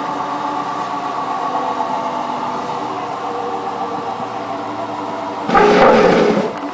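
Hotpoint WT960 washing machine running, its motor and drum giving a steady whine. About five and a half seconds in, a loud rushing burst lasts about a second before fading.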